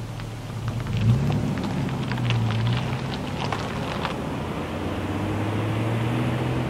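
Ford Ranger pickup pulling away on a gravel road: the engine hum rises as it accelerates about a second in. Loose gravel crackles and pops under the tyres for the first few seconds.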